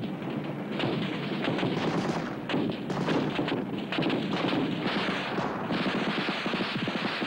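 Sustained automatic rifle fire: many rapid shots overlapping, with no real break.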